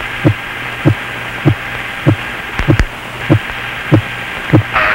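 Heartbeat: evenly spaced thumps, a little under two a second, over steady radio hiss and a low hum. A burst of radio static comes in near the end.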